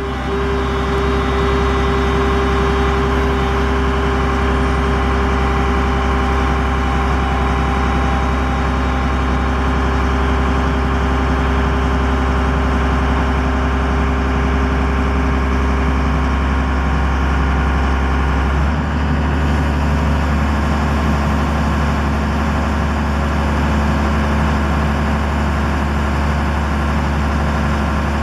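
Diesel engine of a 1993 Dresser 6220LC excavator running steadily at a low, even speed. Its low tone shifts slightly about two-thirds of the way through.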